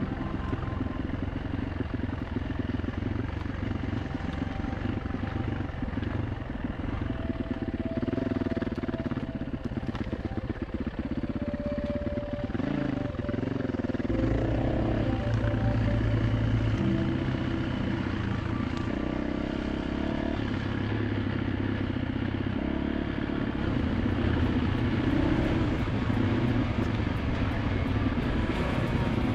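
Dirt bike engine running under load, its revs rising and falling again and again as the rider works the throttle.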